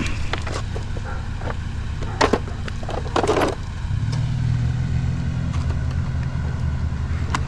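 Vehicle engine running steadily, its hum rising in pitch and level about four seconds in as it pulls away. Two short sharp noises come a second apart, about two and three seconds in.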